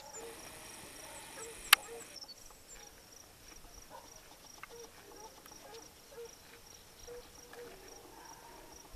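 Insects chirping steadily in a high, evenly pulsing trill, with one sharp click a little under two seconds in.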